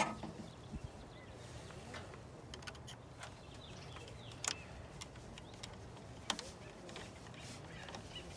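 A few scattered, irregular clicks and taps from hand tools on the bolt of a cold air intake bracket as it is tightened, the sharpest about four and a half seconds in.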